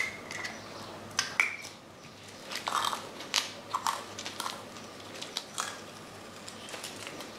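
Masking tape being peeled off an engine casing and crumpled in gloved hands: a series of short, irregular tearing and crackling sounds, some with a brief squeak.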